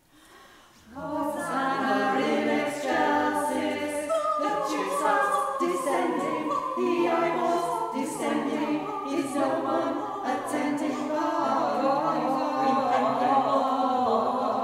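Small mixed vocal group singing a comic carol a cappella in close harmony. The voices come in about a second in, after a brief near-silence.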